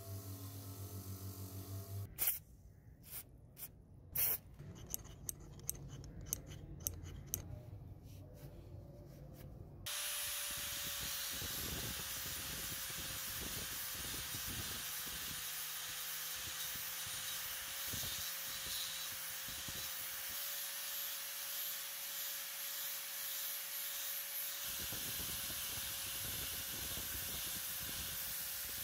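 A bench grinder runs with its wire wheel brushing rust off steel pliers, and stops after about two seconds. Next come a series of sharp clicks and taps with quiet between them. From about ten seconds in, an angle grinder with an abrasive disc grinds the steel pliers steadily, a loud even hiss with a steady tone under it.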